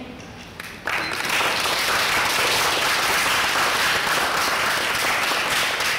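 Audience applauding, starting suddenly about a second in and holding steady.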